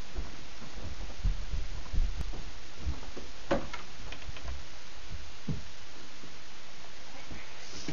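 Footsteps and handling noise on a handheld camera: irregular low thumps over a steady hiss, with a few sharper knocks about three and a half seconds in and again a couple of seconds later.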